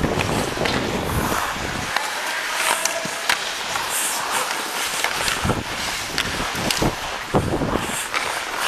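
Ice hockey skate blades scraping and carving the ice up close on a helmet camera, with scattered sharp clacks of sticks and puck.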